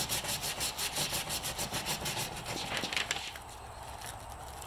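Sandpaper rubbed by hand over the wooden riser of a 1967 Ben Pearson Sovereign Mace recurve bow, in quick back-and-forth scratchy strokes that stop about three and a half seconds in. The sanding strips the old polyurethane finish off the handle.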